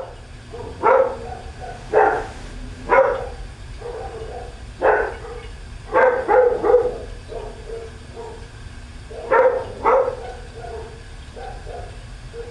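A dog barking repeatedly, single barks about a second apart with a quick run of three in the middle, over a low steady hum.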